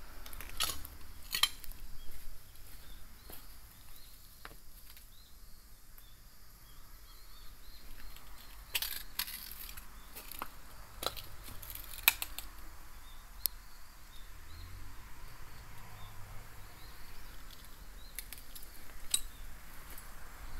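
Footsteps scuffing and crunching over debris and a gritty floor: an irregular series of sharp clicks and clinks. Faint high chirping sounds in the background.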